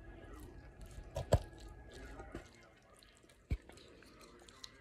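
A fork working creamy fettuccine Alfredo in a plastic takeout container: soft wet squishing and small clicks, with a sharp knock about a second in and another a couple of seconds later.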